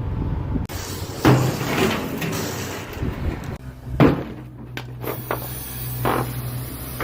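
Heavy diesel equipment engine running steadily, with three loud metallic clanks: about a second in, about four seconds in and near the end.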